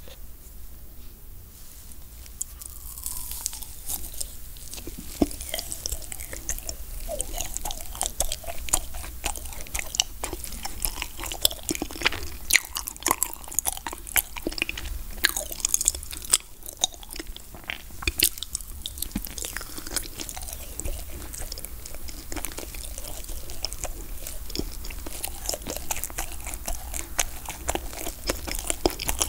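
Close-miked eating sounds of biting into and chewing a peach-shaped wagashi (Japanese sweet with a bean-paste filling), a dense run of many small mouth clicks.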